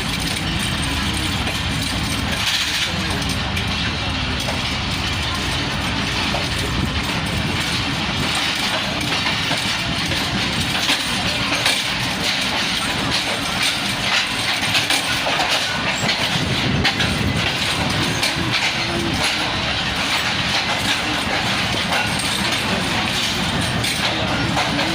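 Passenger train running on the track, with a steady dense clatter of wheels over the rail joints.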